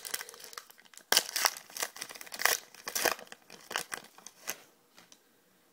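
The wrapper of a 2011 Panini Certified football card pack being torn open and crinkled: a run of sharp rips and crackles that dies away about four and a half seconds in.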